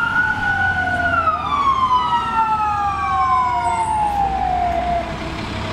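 Fire engine siren wailing in two overlapping rising-and-falling tones, then winding down in pitch and stopping about five seconds in, over a low engine rumble.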